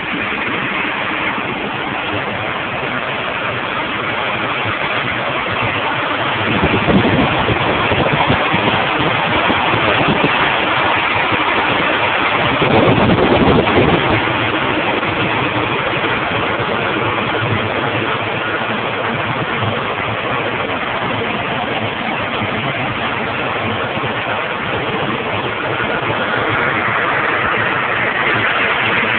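The 1985 Chevy Caprice's carbureted engine running steadily at idle, recorded close in the engine bay. It swells louder twice, at about 7 seconds and again at about 13 seconds.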